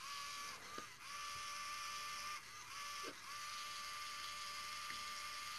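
Small DC gear motors of a line-following robot car kit running with a steady whine, cutting out and restarting a few times as drive shifts between the left and right motor while the optical sensors' calibration pots are turned.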